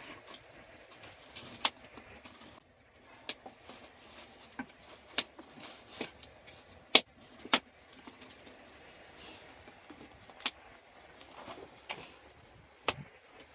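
Driftwood campfire crackling, with sharp pops at irregular intervals over a low hiss.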